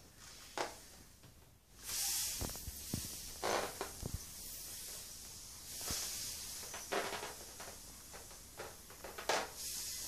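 Air hissing out of the pinched neck of a latex balloon as it is slowly deflated, starting about two seconds in and swelling and easing in uneven surges. Short rubbing and clicking sounds from the rubber being handled come through it now and then.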